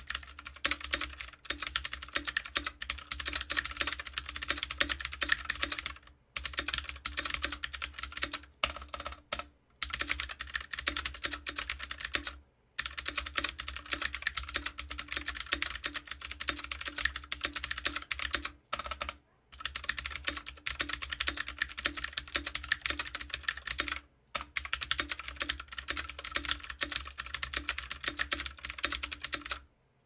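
Keychron K6 mechanical keyboard with stock Gateron Blue clicky switches, stock case and stock stabilizers, typed on at a fast pace: a dense run of key clicks broken by several brief pauses.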